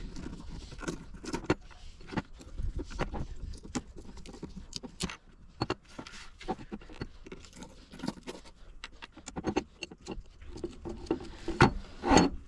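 Hand tool working against a stubborn part of an old Coes monkey wrench, with irregular metal clicks, knocks and scrapes. The loudest knocks come near the end.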